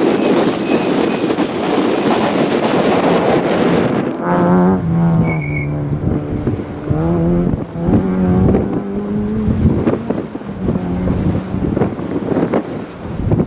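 Citroën Saxo rally car at full stage speed: a loud rush of noise as it passes close, then its engine note revving hard and stepping down and back up through several gear changes as it pulls away.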